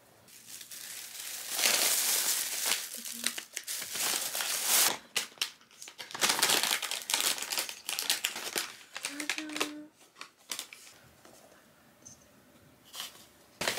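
Paper donut bag crinkling and rustling as it is handled and opened, with the paper sleeve of a donut rustling; the crinkling stops about ten seconds in, leaving a few faint clicks.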